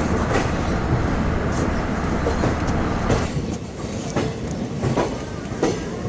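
Railway train running, its wheels clicking over rail joints over a steady rumble: a train sound effect laid over the model-train footage.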